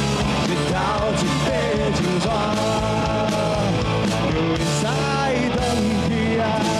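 Live rock music: a singer with a band, with a steady drum beat.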